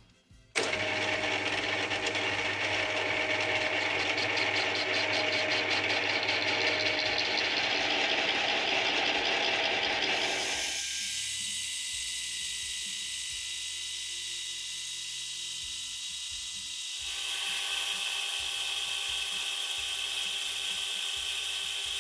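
Metal lathe running a facing cut on a part, a steady machining noise with high steady tones that starts abruptly about half a second in. The sound changes character twice, losing its low end about halfway through and gaining a higher ring about three-quarters of the way through.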